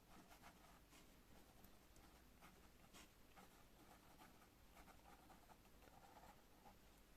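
Pen writing on paper: faint, irregular scratching in short strokes of handwriting.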